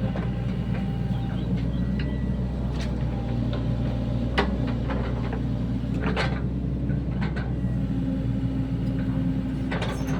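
Sany SY75 mini excavator's diesel engine running steadily, with a few short knocks and clanks scattered through, the sharpest about four and six seconds in.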